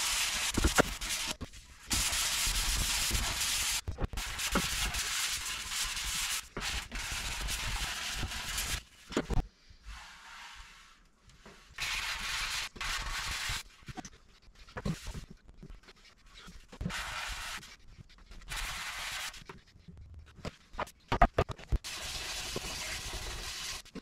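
Sandpaper being rubbed by hand over painted motorcycle bodywork to scuff the old clear coat before respraying. It comes as a rasping hiss in stretches of one to a few seconds, with short pauses between them.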